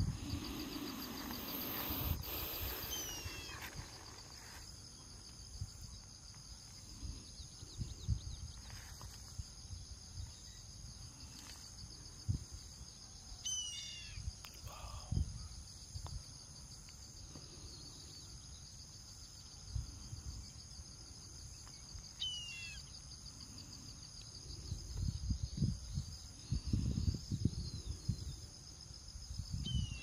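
Indian grey hornbill giving about four short, high calls spaced several seconds apart, over a steady high insect drone and low rumbling bumps.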